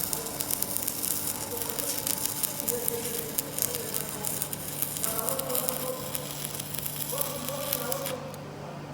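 Stick-welding arc burning a 3.2 mm cast-iron electrode at about 90 A: a steady crackling sizzle full of sharp pops, which cuts off suddenly about eight seconds in as the arc is broken.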